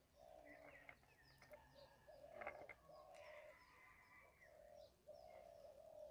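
A dove cooing faintly, a run of low hoots each about half a second long, with a few higher bird chirps and a faint click about halfway through.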